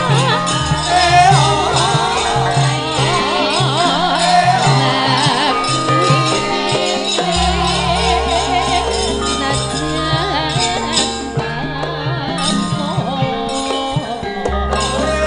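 Javanese gamelan ensemble playing wayang kulit accompaniment: held metallophone tones, a wavering melodic line above them, and deep gong strokes about every seven seconds.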